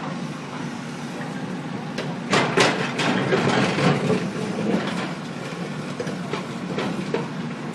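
Heavy road-construction machinery running steadily with a low engine hum. From about two seconds in there is a loud burst of clanking and scraping that lasts a few seconds, and a few lighter knocks come near the end.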